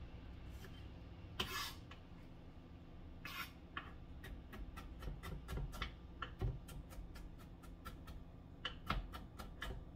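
Kitchen knife chopping green bell pepper on a plastic cutting board: two short scraping sounds in the first few seconds, then a run of quick, even taps of the blade on the board, about four a second.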